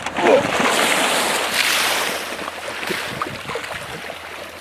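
Water splashing and sloshing as someone gets into cold, muddy water. It is loudest in the first couple of seconds, then fades to gentler sloshing.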